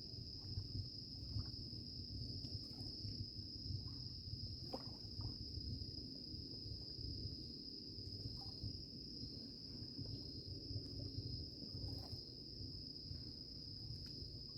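Night chorus of crickets: a steady, unbroken high-pitched trill, with a low, uneven rumble underneath.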